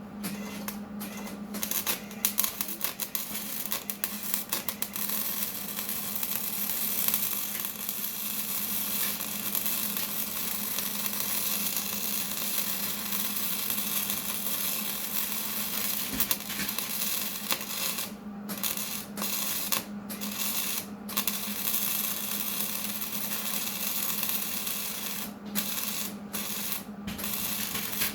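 Wire-feed welder arc crackling and hissing steadily over a low hum, breaking off briefly several times in the second half as the weld is stopped and restarted.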